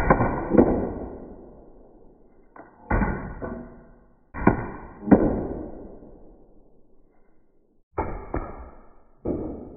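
About five sudden air-gun shot and impact sounds, each cutting in abruptly and dying away over a second or two, with a faint steady high ring in each. The sounds are edited and slowed under slow-motion replays of a .50 calibre HDR 50 firing balls into a packed flour bag.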